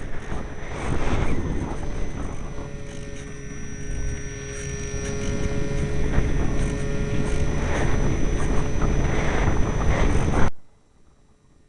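Strong wind buffeting the microphone in loud, uneven gusts, with a faint steady whine underneath. The sound cuts off abruptly near the end.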